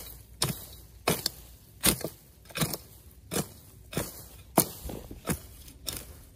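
Steady chopping: a hand tool strikes sharply and evenly, about three times every two seconds.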